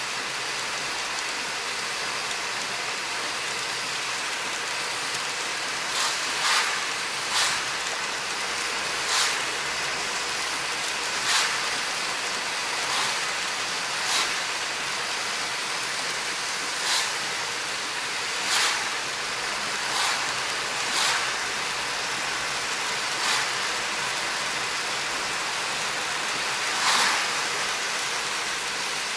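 Steady hiss of heavy rain and tyres on a wet road heard from inside a car's cabin, with short swishes every one to four seconds.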